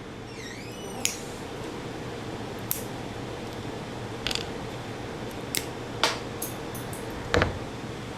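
Small plastic kit parts being clipped off a sprue: several sharp snips, roughly a second apart, over a faint steady hum.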